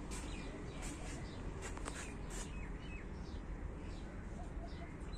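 Scattered short bird chirps over a steady low background rumble, with a few faint clicks.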